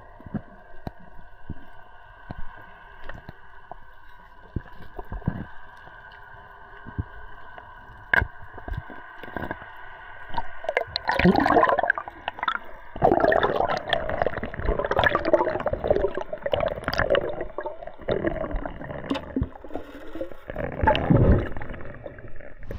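Underwater sound picked up by a diver's camera: a faint steady whine with scattered clicks, then from about eleven seconds in, louder gurgling and churning water as the diver swims.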